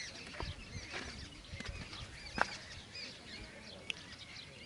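Birds chirping and twittering in the background, many short high chirps overlapping, with a few soft clicks or knocks. The sharpest knock comes about halfway through.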